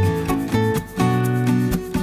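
Background music: a light tune of plucked notes, with guitar-like timbre.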